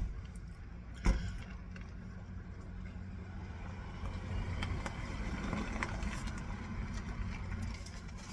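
Steady low rumble like a car running, with two sharp knocks about a second apart near the start and light clicks and rustling after.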